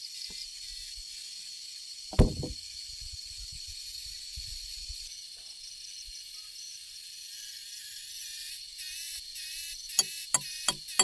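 Steady chorus of insects, crickets-like, with a constant high tone. One heavy thud comes about two seconds in, and four sharp knocks come in quick succession near the end.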